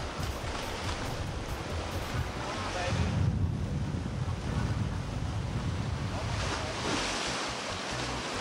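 Sea surf washing and churning around rocks, with wind rumbling on the microphone.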